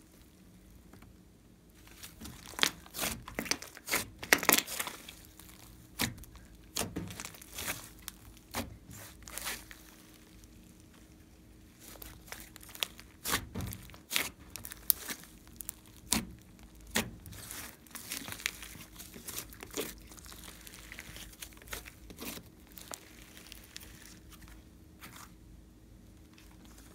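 Hands stretching, squeezing and folding a large mass of glossy slime: irregular sticky clicks, pops and crackles as it pulls apart and its air pockets burst, coming in flurries with short lulls.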